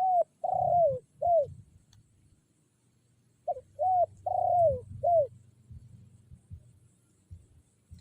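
Spotted dove (tekukur), the trapper's decoy, cooing loudly to call out a rival: two phrases of about four arched coo notes each, the third note of each phrase the longest, the second phrase about three and a half seconds after the first.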